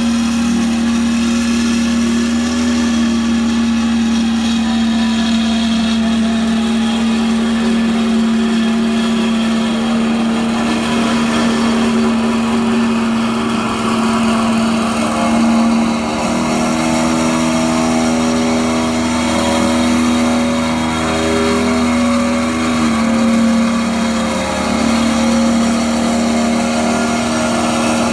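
The engine of a walk-behind double-drum roller running steadily at a constant speed while the machine is walked back and forth compacting soil.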